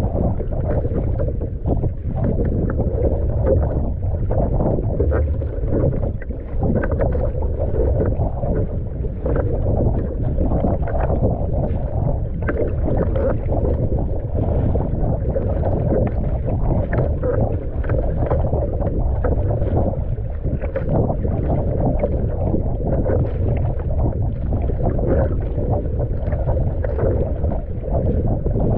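Steady wind rumbling on the microphone, with choppy sea water splashing and slapping along a surfski's hull as the paddle blades dig in.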